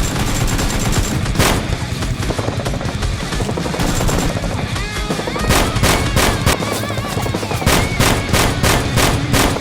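Gunfire sound effects over background music: a single shot about a second and a half in, then a rapid volley of shots, about three a second, from about five seconds in.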